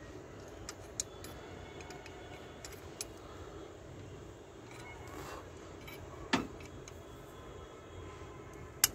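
Hand tools clicking and clinking on metal as a broken-bolt extractor is turned with a wrench in a seized bolt in an engine's cylinder head. A few scattered sharp metallic clicks, with two louder ones about six seconds in and near the end.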